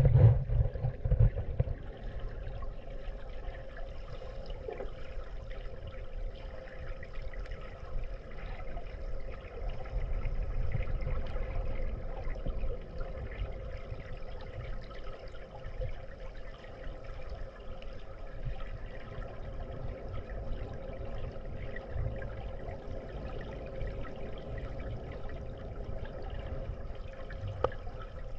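Muffled underwater sound of pool water, heard with the microphone submerged: a steady low rumble and water noise, with a louder churning in the first second or so.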